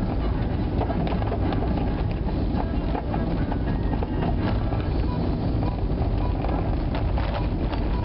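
Road noise inside a moving vehicle's cabin: a steady low rumble of engine and tyres on a snow- and ice-covered highway, with frequent small clicks through it.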